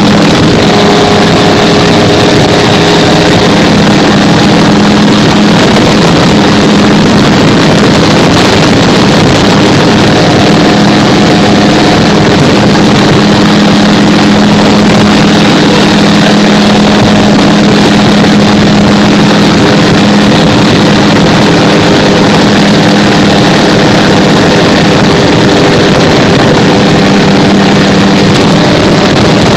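Gyrocopter engine and propeller droning steadily and loud in flight, over a dense rushing of air noise.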